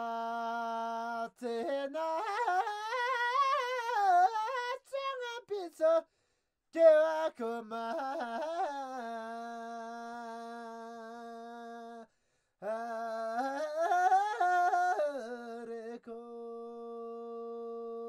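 A solo voice singing a Tibetan folk song: long held notes alternating with wavering, richly ornamented phrases, with two short breaths between lines.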